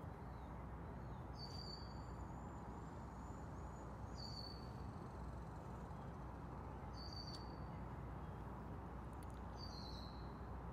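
A bird calling outside: a short, high chirp that slides slightly downward, repeated four times about every two and a half to three seconds over a steady low outdoor background noise.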